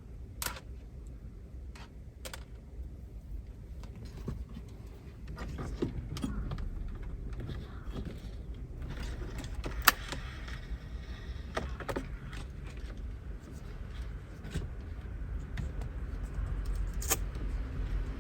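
Scattered clicks, taps and rustling of hands handling wiring and masking tape around a car's dashboard, over a steady low rumble.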